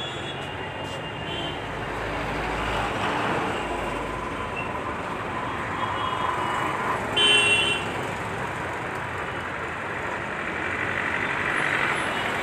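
Steady din of street traffic, with a short, high horn toot a little over seven seconds in.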